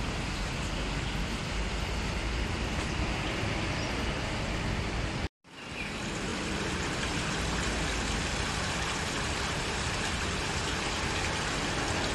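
Steady road-traffic noise from a city street. It cuts out abruptly about five seconds in, then a steady rush of water from a small garden stream takes over.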